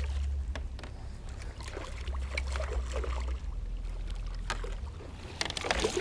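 Hooked smallmouth bass splashing and thrashing at the water's surface beside a kayak, over a steady low rumble. The splashing grows louder near the end as the fish jumps.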